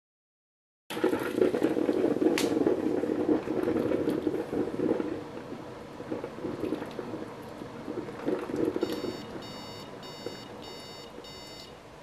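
Ninja coffee bar running noisily for a few seconds and then beeping five times in quick succession: the five-beep signal it gives when a brew stops short, a fault the owner traces to debris clogging its hoses.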